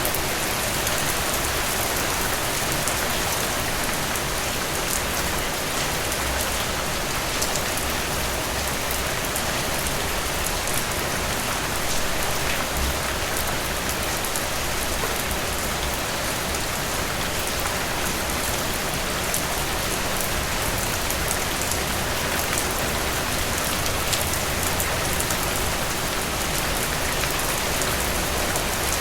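Heavy rain falling steadily on a hard surface, a dense even hiss with scattered separate drop ticks and a low rumble beneath.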